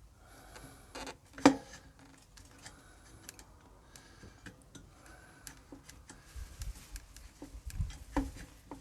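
Light metallic clicks and clinks of hand work on a motorcycle's rear brake caliper as it is worked free of the wheel spokes. There is a sharper knock about a second and a half in and a few dull thumps near the end.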